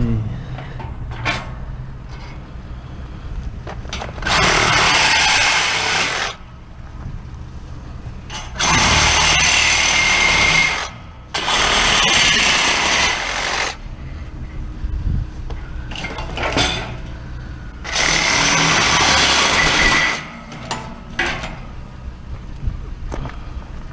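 Handheld power tool cutting scrap, run in four bursts of about two seconds each, with a few sharp metal knocks from handling between the bursts.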